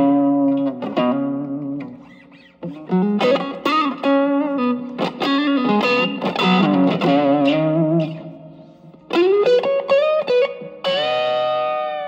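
Electric guitar, a Stratocaster, played through an Ibanez TS808 Tube Screamer fitted with a 1980 Malaysian RC4558P op-amp, set to low gain with the guitar's volume knob rolled back so the overdrive cleans up. Single-note phrases and chords, with a short pause about two seconds in and a ringing chord held near the end.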